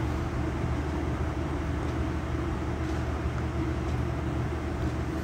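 Steady low mechanical hum with a constant rushing noise over it, unchanging throughout.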